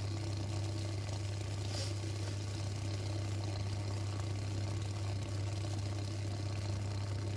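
A steady low electrical hum from an electric steam vaporizer running while it heats its water.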